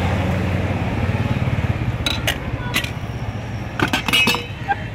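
Steel utensils at a gola ganda cart clinking a few times, about two seconds in and again around four seconds, over a steady low motor rumble.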